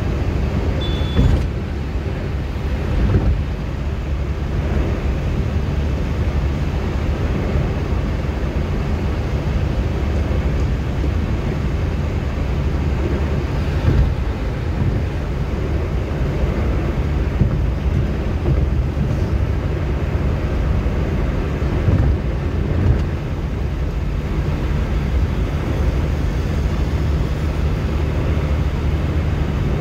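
Steady low rumble of a car travelling at speed, heard from inside the cabin: engine and tyre-on-road noise, with a few brief knocks from bumps in the road.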